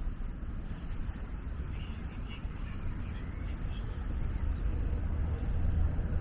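Outdoor park ambience: a steady low rumble with an even background hiss, plus a few faint high chirps about two to three seconds in.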